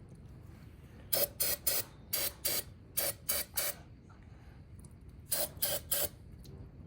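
Aerosol can of carburetor cleaner sprayed in eleven short, sharp hissing spurts, grouped in quick runs of two or three with brief pauses between.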